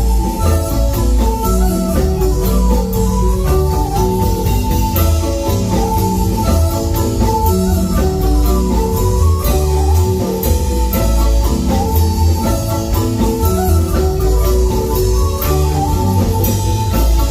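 Marimba band playing: quick runs of struck marimba notes over a steady bass line and drum kit.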